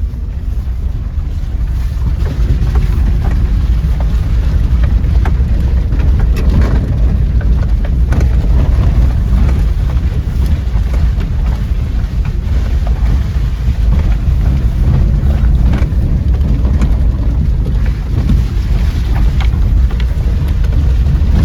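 Maruti Gypsy off-roading: its engine running under a loud, steady low rumble of wind buffeting the microphone, with scattered short knocks and clatters.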